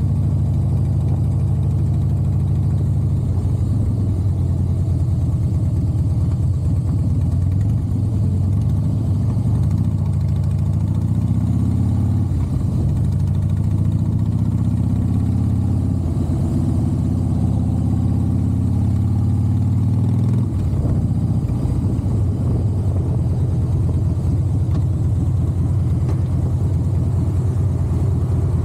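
Harley-Davidson Softail Heritage Classic's V-twin engine and exhaust running under way, a deep, steady rumble. In the middle its pitch rises several times as it accelerates through the gears, then it changes abruptly and settles back into a steady run.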